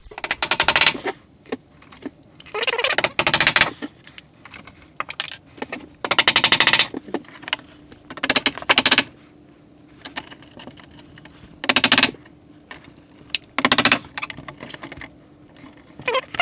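Bursts of rapid rattling clicks, about six of them with pauses between, from work on yellow NM electrical cable on wooden wall studs.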